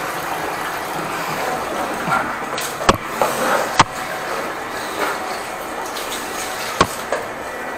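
Water running steadily down a drain that had been backing up, now draining freely after high-pressure jet cleaning. Three sharp clicks about three, four and seven seconds in.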